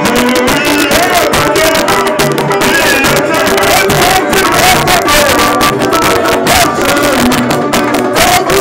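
Live samba de enredo: a man sings the lead into a microphone over a samba percussion group, tamborins striking a fast steady rhythm throughout.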